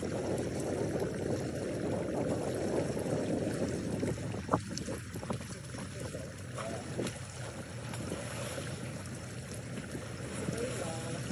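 Steady low rumble of wind on the microphone, with one sharp knock about four and a half seconds in.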